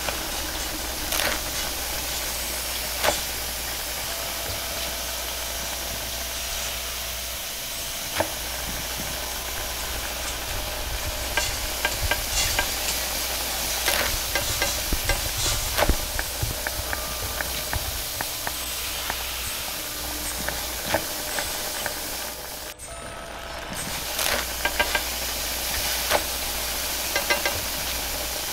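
Steady hiss of a high-flame gas wok burner with noodles sizzling as they are stir-fried, dotted with sharp clanks of a metal ladle striking the wok. The sound briefly drops out about 23 seconds in.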